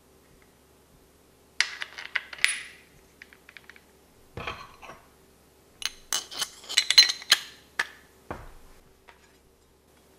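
Small steel brush-cutter parts clinking and clattering as they are handled and fitted: a flat metal washer going onto the trimmer gearbox's arbor. There are several bursts of sharp clinks, the busiest about two-thirds of the way through, with a couple of duller knocks.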